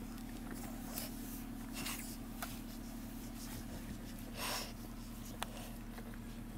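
Faint rustling, scratching and small clicks of newborn bullmastiff puppies squirming and nursing against their mother on a blanket, over a steady low hum. A short breathy rush comes about four and a half seconds in.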